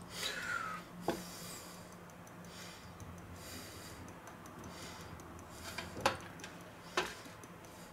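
Faint rattle of a spice shaker being shaken over a raw chicken, with a few light clicks and knocks from handling around it.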